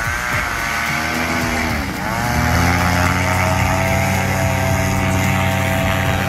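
Paramotor engine and propeller running at high power during a takeoff run. The engine note dips about two seconds in, then climbs and holds steady.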